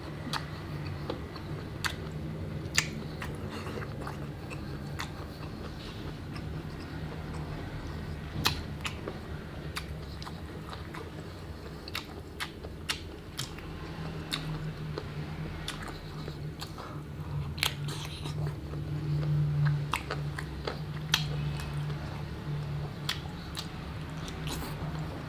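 Close-miked chewing and biting of chicken feet in sauce, with sharp crunches and wet mouth clicks scattered irregularly throughout. A steady low hum runs underneath.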